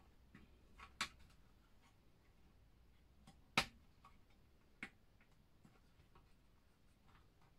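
A few sparse small clicks and taps of a plastic CompactFlash adapter and fingertips against the Amiga A600 motherboard's pin header as the adapter is worked into place; the sharpest click comes about three and a half seconds in.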